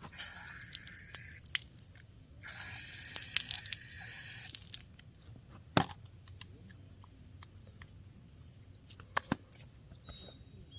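Water running in two spurts, about a second and a half and then about two seconds long, as hands are rinsed, followed by scattered drips and light clicks. A few short high chirps sound near the end.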